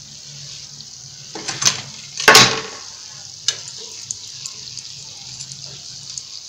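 Donuts deep-frying in hot oil: a steady high sizzle. A metal slotted spoon working in the pan adds a few short knocks, the loudest about two seconds in.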